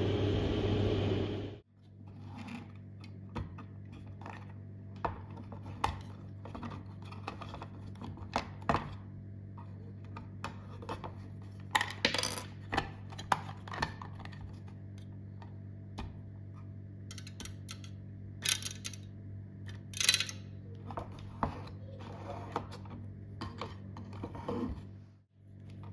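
A loud whirring noise with a strong low hum cuts off abruptly about a second and a half in. After that, scattered clicks, taps and light clatter of small hard objects being handled sound over a steady low hum.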